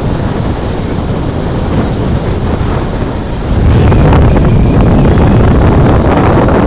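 Loud wind buffeting the microphone as it rides on the roof of a moving truck, a dense rushing rumble that swells about three and a half seconds in.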